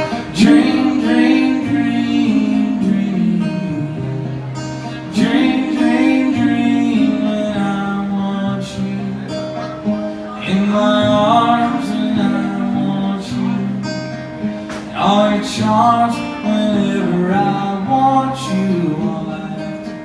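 Acoustic guitar music with strummed chords.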